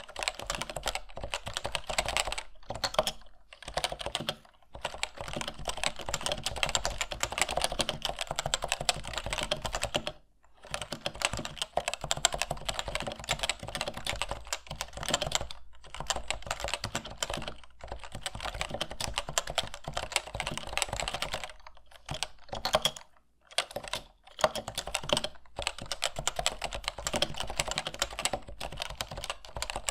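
Continuous fast typing on a Topre Type Heaven keyboard, its electrostatic capacitive rubber-dome switches under stock ABS keycaps, with a few brief pauses, the longest about ten seconds in and around 23 seconds.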